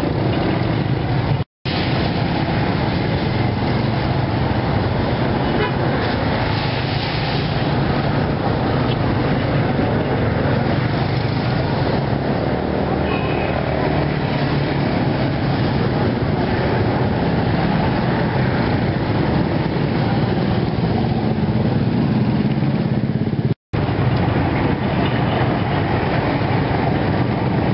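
Steady roadside traffic noise: vehicle and motorcycle engines running past in a continuous low hum, with two brief dropouts in the audio.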